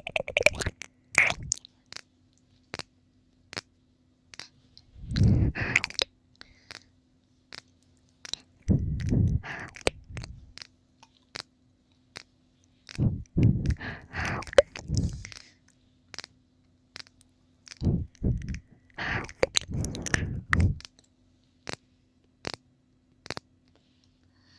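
Close-miked wet mouth sounds of ASMR ear licking: clusters of licking and smacking about every four seconds, with sharp single clicks between them.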